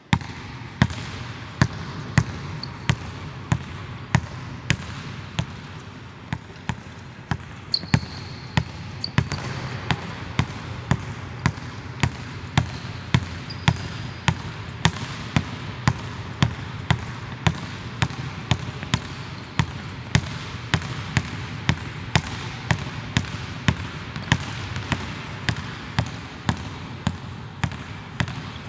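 Basketball dribbled on a hardwood court in a large empty arena: a steady run of sharp bounces, about one and a half a second at first, quickening to two or three a second from about ten seconds in, over the hall's steady background hum. A few brief high squeaks come around eight and fourteen seconds in.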